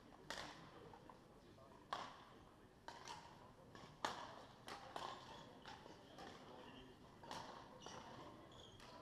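Badminton rackets striking shuttlecocks: sharp, irregular smacks, about eight of them, each echoing briefly in a large sports hall, the loudest about four seconds in.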